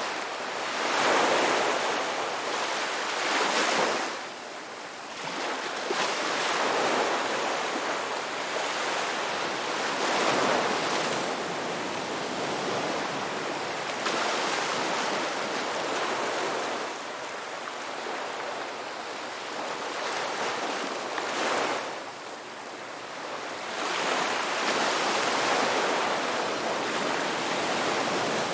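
Sea waves washing onto a shore, the surf swelling and receding every few seconds in a continuous rush of water.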